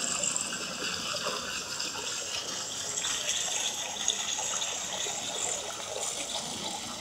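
Steady rushing noise like running water, with no distinct events.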